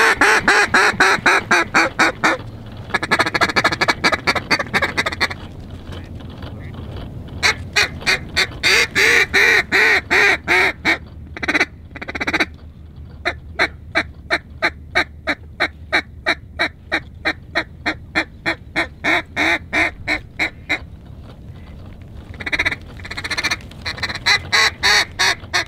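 Mallard duck call blown in long, rhythmic runs of quacks, about three to five a second, broken by short pauses: hail and comeback calling to draw passing mallards into the decoys.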